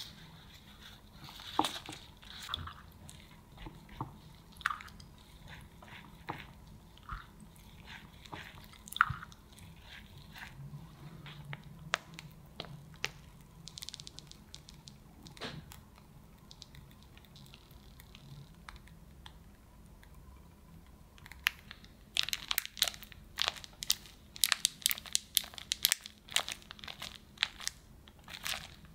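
Cake-assembly handling sounds: scattered light taps and clicks. About two-thirds of the way in comes a dense run of sharp crinkles, from a plastic piping bag being squeezed as cream is piped onto the sponge layer.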